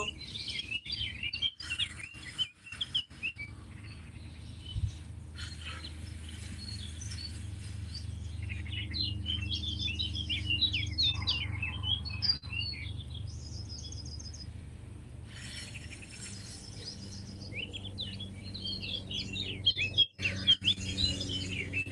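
Wild birds chirping and singing in bursts of quick high chirps, with a short fast trill near the middle, over a steady low hum.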